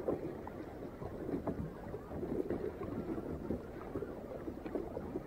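Kayak paddle strokes in calm sea water: the blade dipping and splashing, with a steady patter of water dripping and trickling around the hull.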